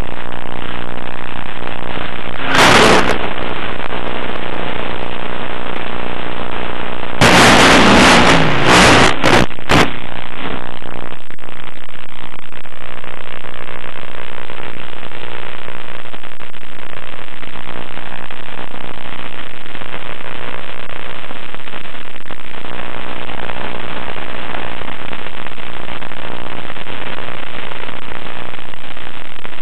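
Onboard audio from an FPV model airplane carried over its video link: the propeller motor drones under heavy steady hiss. Loud crackling bursts of radio static come about three seconds in and again for a few seconds soon after.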